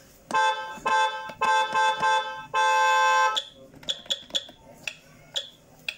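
Loud electronic beeps from the sound button on a toy ride-on car's steering wheel, played through its small speaker in four bursts over about three seconds. A run of sharp plastic button clicks follows.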